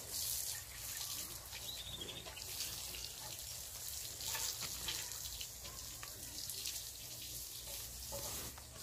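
Water from a garden hose spraying onto a cow's back, a steady, faint hiss.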